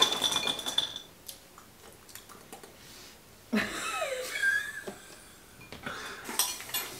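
Dry churro cereal poured from its box into a glass bowl, the pieces clinking and the glass briefly ringing during the first second, followed by a few small clinks. A short laugh comes about halfway through.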